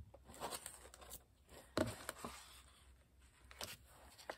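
Faint handling noise: a few light clicks and taps with some rustling as plastic die-cutting plates and a silicone embossing mat are picked up and laid down.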